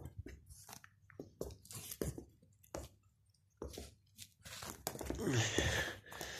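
A Pomeranian play-biting and chewing at a knit sleeve: a run of short nibbling, scuffling and rustling sounds of teeth, fur and fabric, louder about five seconds in.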